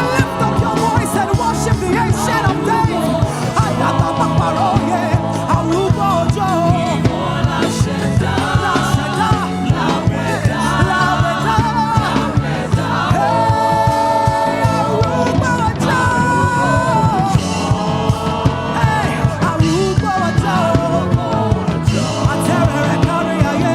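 Live gospel praise and worship music: a band playing a steady beat under singing, with a choir of voices.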